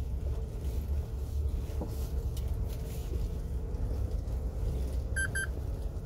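Low engine and road rumble inside a truck's cab while driving. Two short electronic beeps come in quick succession about five seconds in.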